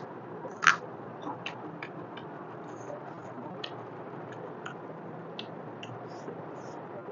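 Close-miked eating sounds from chewing a mouthful of mutton trotter curry and rice: scattered wet mouth clicks and lip smacks, with one sharper, louder click under a second in, over a steady low background hiss.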